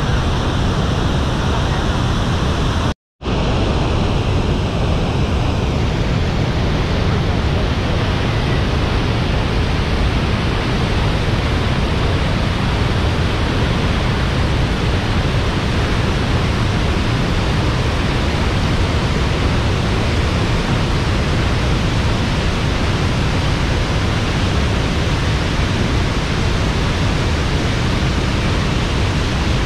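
Niagara's Bridal Veil and American Falls roaring: a loud, steady rush of falling water heard from the brink, with a brief cut to silence about three seconds in.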